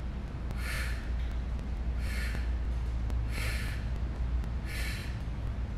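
A woman's sharp, forceful breaths, four in all, evenly spaced a little over a second apart. They are paced by her exertion in side-plank leg lifts, one breath per rep. A steady low hum runs underneath.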